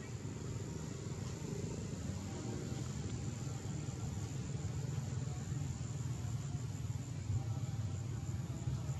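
Forest ambience: a steady high-pitched insect drone, faintly pulsing near the end, over a steady low rumble.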